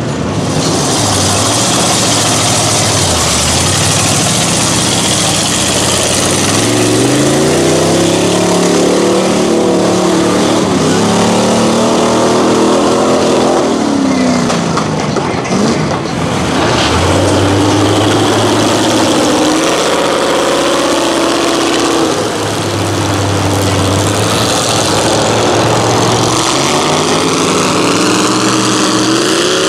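Lifted mud trucks on tractor tires running through a mud pit, their engines revving up and dropping back again and again over a steady hiss of slung mud and water.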